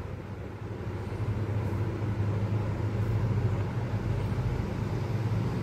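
Steady low background hum with a faint rumble, unchanging throughout.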